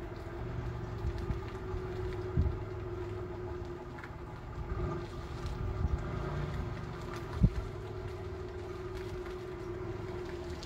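Supercharged 3.8-litre V6 of a 2002 Pontiac Grand Prix GTP running steadily at low speed as the car rolls slowly, with a couple of brief low thumps.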